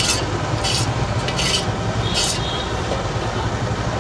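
A metal ladle scraping around a steel wok four times, short rasping strokes a little under a second apart, scooping up gravy. Under it runs a steady low rumble.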